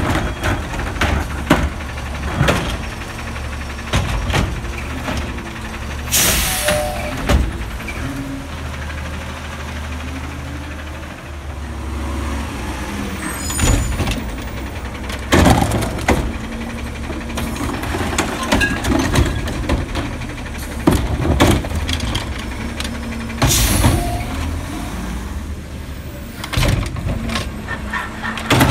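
Automated side-loader garbage truck's diesel engine running, its pitch rising in the middle as the truck pulls ahead, with repeated clanks and knocks from the lifting arm and the cart against the hopper. Two hisses of the truck's air brakes, about six seconds in and again a few seconds before the end.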